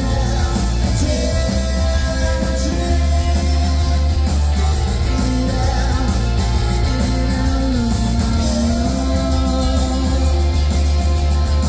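Live rock band playing: electric guitar, bass guitar and drum kit with a male lead vocalist singing, the bass heavy and booming.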